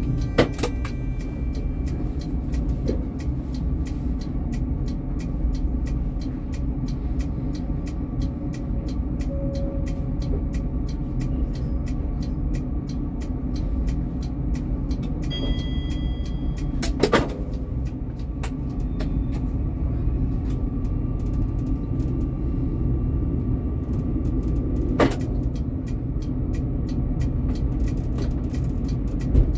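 Tram running along its line: a steady low rumble of wheels on the rails and the motors, with a string of faint regular clicks. Sharp knocks come three times, near the start, about seventeen seconds in and about twenty-five seconds in, and a brief high tone sounds about fifteen seconds in.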